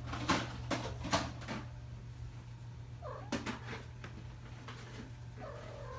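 Kitten meowing twice, short cries about three seconds in and again near the end, after a few sharp knocks and rustles in the first second and a half. A steady low hum runs underneath.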